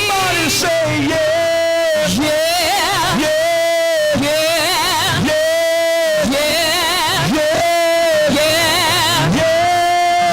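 Gospel worship music with singing; a lead line swoops up into a held, wavering note about once a second.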